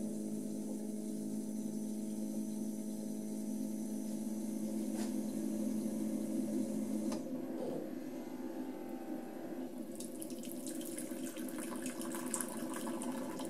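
Keurig K40 single-cup brewer running a brew cycle: a steady pump hum that changes about seven seconds in, then hot water splashing into a cup for the last few seconds.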